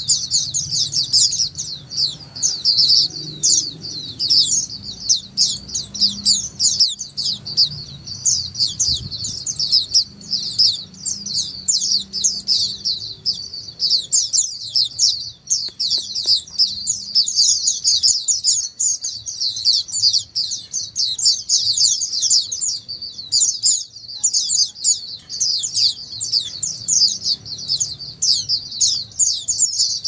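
A flock of white-eyes (pleci) chirping and twittering together without pause, many high, quick notes overlapping.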